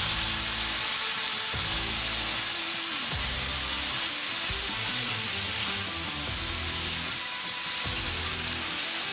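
Plasma cutter arc hissing steadily as the torch cuts through 10 mm steel plate, fed by the machine's built-in air compressor, with background music underneath.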